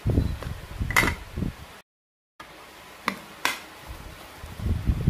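A metal fork mashing canned corned beef on a ceramic plate: irregular dull knocks with a few sharp clinks of the fork against the plate. The sound drops out completely for about half a second around two seconds in.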